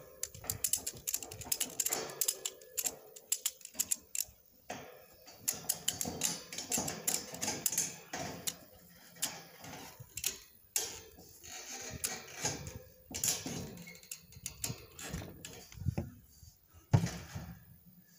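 Ratchet strap being cranked, its pawl clicking in quick irregular runs as the strap is tightened to pull two steel tower sections together. A heavier thump comes near the end.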